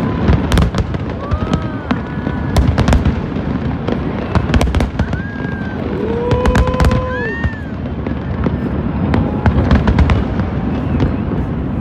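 Fireworks display: a dense run of bangs and crackles over a steady low rumble, with a few short pitched tones that rise and fall over it.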